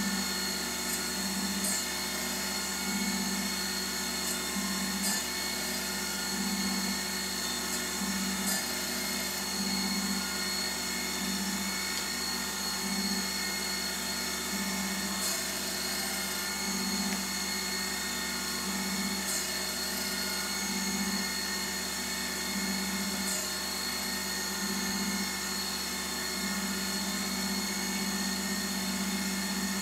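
LIP 515 surface grinder running steadily, its wheel making spark-out passes over a steel part with no further downfeed as the table traverses back and forth. A steady hum and whine with a low pulse every second or two and a few faint clicks.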